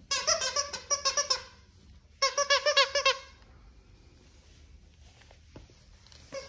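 Squeaky dog toy squeezed rapidly in two quick runs of high squeaks, each about a second long, with a short pause between.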